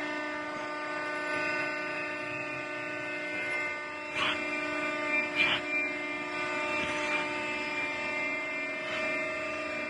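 Steady hum with several held tones from the four-roll hydraulic plate bending machine's hydraulic drive running, with a few short knocks about four, five and a half and seven seconds in.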